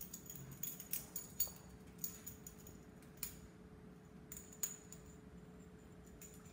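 Faint, irregular clicks and ticks as a toy poodle scrabbles on a tile floor, pawing at a leash caught in her coat, over a steady low hum.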